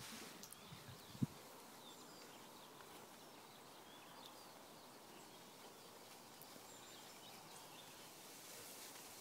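Faint open-field ambience: distant small birds chirping now and then over a soft steady hiss, with one brief thump about a second in.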